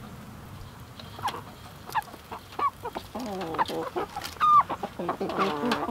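Chickens clucking: a run of short clucks starting about a second in, with two longer drawn-out calls about three and five seconds in.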